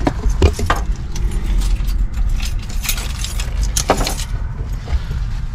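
Low steady rumble inside a slowly moving car, with a few short clicks and rattles: several in the first second, then one about three seconds in and one about four seconds in.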